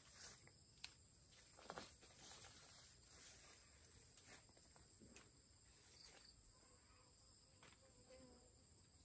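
Faint steady high-pitched insect drone, with a few soft scattered clicks and rustles.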